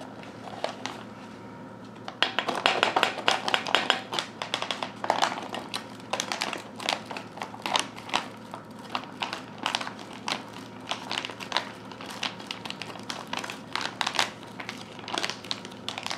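Crinkling of a foil-lined Mountain House freeze-dried food pouch as it is shaken and squeezed to empty the rehydrated filling into a bowl. The crackling starts about two seconds in and goes on as a run of irregular sharp crinkles.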